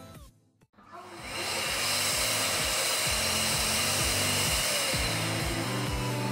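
Electronic music: after a short drop-out, a steady hiss swells up within about a second and holds over a regular low beat.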